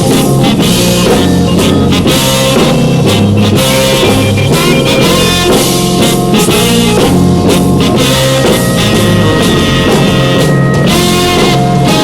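Instrumental break in a 1965 rock single: a band of guitar, bass and drum kit playing with no vocals.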